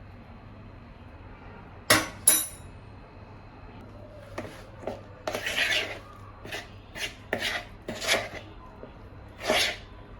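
Two sharp clinks of kitchenware about two seconds in, then a run of short scraping strokes: a spoon scraping round a bowl as flapjack batter is mixed.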